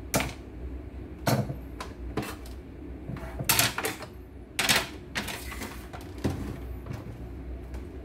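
Handling clatter of a plastic embroidery machine: about six sharp clacks and knocks spread out, as its white plastic bottom cover panel comes off and is laid on a wooden workbench and the machine is set upright on the bench.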